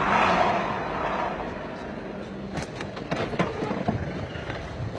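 A vehicle moving close by on the road, loudest in the first second, followed by a run of sharp clicks and knocks.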